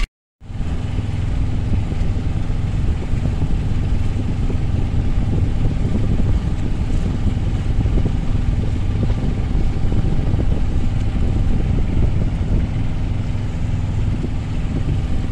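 Yacht's Beta Marine 16 inboard diesel running steadily under way, now cooling properly after its water-pump impeller was replaced, with wind and water noise. It cuts in after a brief silent gap at the start.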